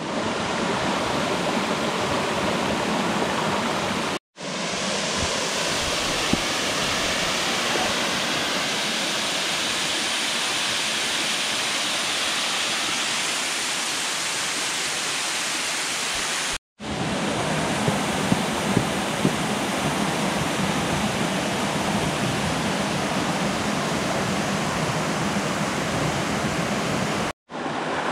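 Rushing water of a mountain stream or waterfall, a steady loud rush, broken by three brief cuts, with a few faint ticks a little past the middle.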